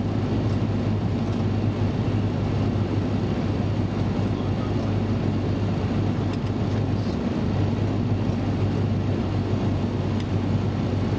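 Steady flight-deck noise of a Boeing 737 descending to land: a constant rush of air and engine drone over a steady low hum.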